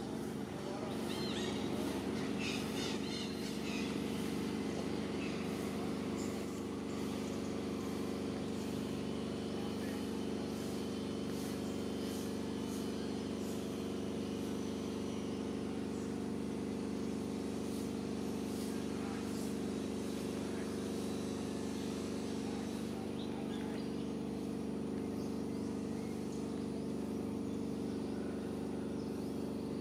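A steady engine hum, with some bird chirps in the first few seconds.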